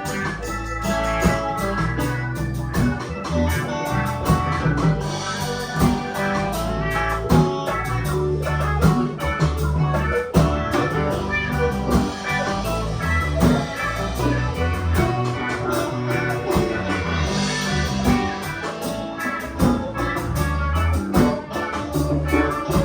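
Band playing an instrumental passage: guitar and organ-like keyboard over a bass line and drums, with a steady beat.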